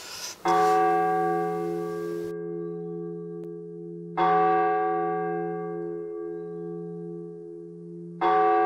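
A deep bell struck three times, about four seconds apart, each stroke ringing on and slowly fading. Just before the first stroke, a felt-tip marker scratches across paper.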